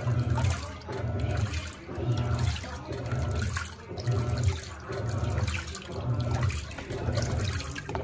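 Panasonic NA-F140B6 top-load washing machine agitating in its tank-cleaning cycle, wash stage: the motor hums in pulses about once a second as the pulsator swings back and forth, with water sloshing and churning in the full tub.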